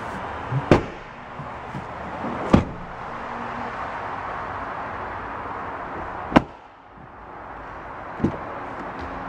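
A 2011 Chevrolet Tahoe's folded rear seat clunking twice as it is moved back into place, then a door shutting with a loud thump about six seconds in, and a door latch clicking open near the end.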